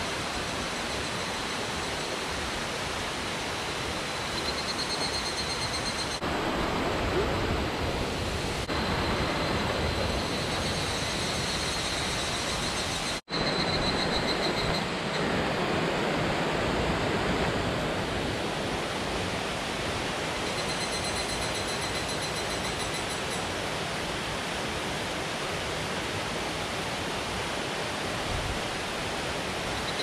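Mountain stream rushing steadily, with evening cicadas (higurashi) calling over it in three high, trilling phrases of a few seconds each. The sound cuts out for an instant near the middle.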